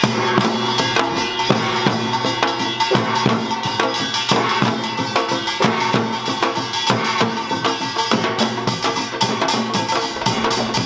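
Korean samul nori ensemble playing Yeongnam-style samul nori: janggu and buk drums beat a fast, dense rhythm, kkwaenggwari small gongs clang over them, and the jing gong rings underneath.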